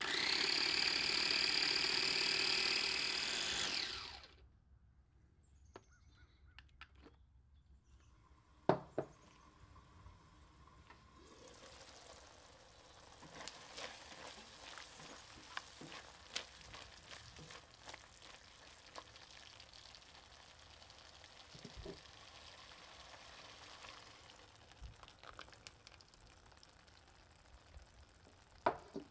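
Food processor motor running loud and steady as it blends chickpeas, stopping about four seconds in. After a few quiet seconds with scattered clicks, faint sizzling and light scraping follow as a tomato-onion masala is stirred with a silicone spatula in a wok. A sharp click comes near the end.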